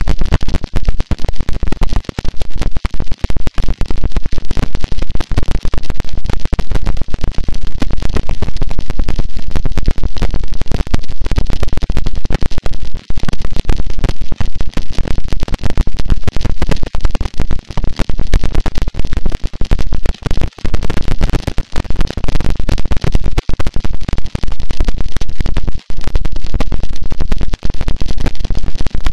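Harsh noise wall: a loud, unchanging wall of crackling, distorted static, heaviest in the low end.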